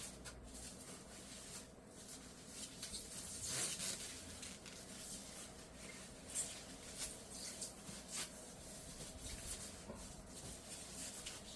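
Rustling, rubbing and light scattered knocks of packaging being handled during an unboxing, with a brief louder rustle about three and a half seconds in.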